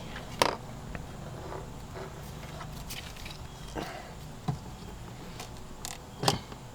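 Plastic interior door trim on a BMW E90 being pressed and snapped back into the door panel: a handful of sharp clicks and knocks spread over several seconds, the loudest near the end.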